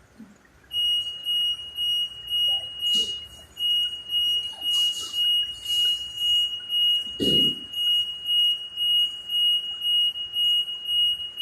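Portable mechanical ventilator's alarm beeping: a high-pitched electronic tone pulsing about twice a second, starting about a second in. It sounds while the ventilator is fed oxygen from a flow meter, which does not hold a stable supply pressure.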